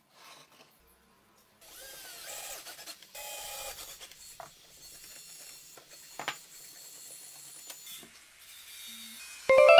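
Cordless drill running into a plywood corner joint in short runs for about two seconds, its motor whine rising as it spins up, followed by quieter scraping and handling of the wooden clamp with a few knocks. Near the end comes a short, loud pitched tone that steps in pitch.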